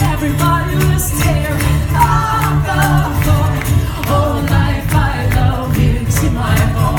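Live pop music: a woman singing lead over a loud bass line and a steady beat.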